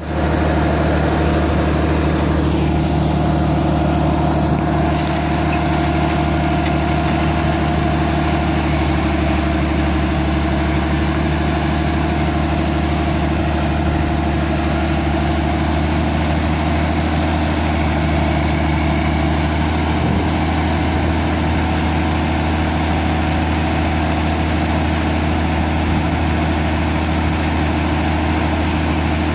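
Massey Ferguson 2680 tractor's diesel engine idling steadily.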